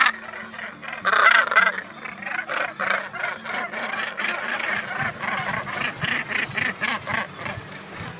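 Northern gannet colony calling: many overlapping harsh, grating calls, with a loud burst about a second in, then a steady chorus of rapid repeated calls.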